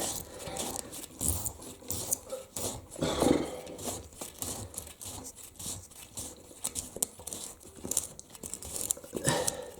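Irregular small clicks, scrapes and rustles of hands and plastic as the flush valve's locknut is worked loose under a toilet tank.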